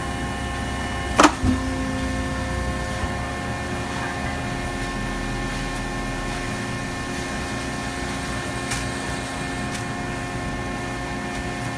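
Industrial machinery running: a steady hum with several constant whining tones and a low rumble that fades out about halfway through. A loud sharp burst about a second in, and a fainter click later on.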